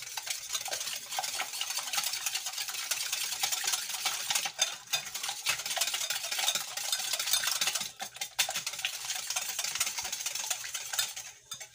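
Hand wire whisk beating eggs, oil and sugar in a glass bowl: a rapid wet swishing with light ticks of the wires on the glass. It breaks off briefly three times.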